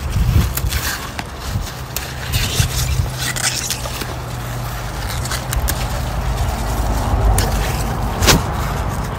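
Mustard-green leaves being picked by hand: rustling of leaves and a few sharp snaps as stems break, over a steady low hum.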